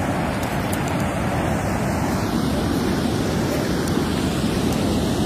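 Muddy storm floodwater rushing across an asphalt road in a steady rush.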